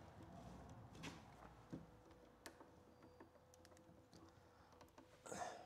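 Faint handling sounds of electrical work: a few light clicks and taps as hands move the spliced wires and linesman pliers at a metal junction box, with a short rustling scrape near the end, over a faint steady hum.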